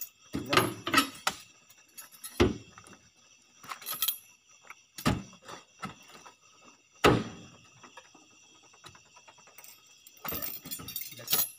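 A string of sharp knocks and heavy thuds, a second or more apart, as oil palm fruit bunches are pitched up with long poles and land against the truck's steel cargo box and the load. Near the end comes a stretch of rustling and scraping.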